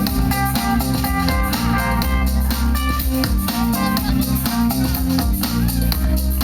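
Live rock band playing an instrumental passage: guitar and bass over a drum kit with a steady beat.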